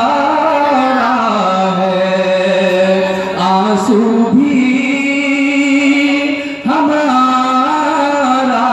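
A man singing a naat, an Urdu devotional poem in praise of the Prophet, into a stage microphone. He draws out long held notes that glide up and down between pitches, with a short break about six and a half seconds in before the next note.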